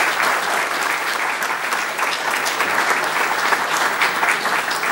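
Audience applauding at the end of a talk: steady clapping from many hands.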